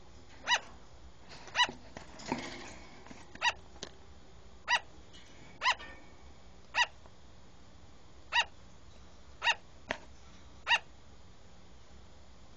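Platinum sugar glider barking: short, sharp yaps repeated about once a second, nine in all.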